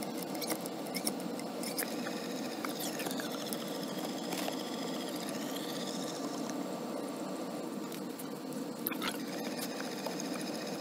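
Steady rushing hum of the air handler with its blower running. High squeaks glide up and down over it and a few sharp clicks sound, the strongest about nine seconds in.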